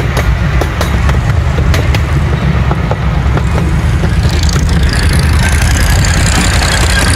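Ride-on miniature railway train running on its track, with a steady low rumble and repeated sharp clicks from the wheels on the rails. From about four seconds in, a high wheel squeal sets in as the train rounds a curve.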